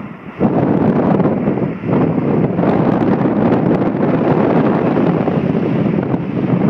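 Wind rushing and buffeting over a phone's microphone from a moving car, mixed with road noise. It dips briefly just after the start, then runs on loud and steady.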